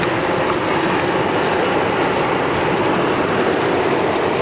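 Steady road and engine noise inside a car's cabin while driving at highway speed.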